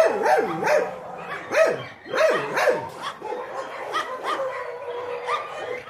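Dog whining and yipping: a quick run of short cries that rise and fall in pitch over the first three seconds, then thinner, higher whines.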